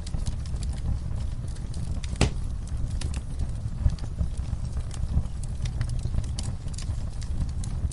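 Wood fire crackling in a fireplace: a steady low rumble with irregular sharp snaps, and one louder pop about two seconds in.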